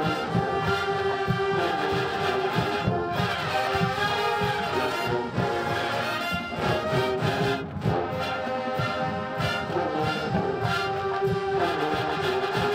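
Marching band music: brass playing a melody with sustained notes over a steady drum beat.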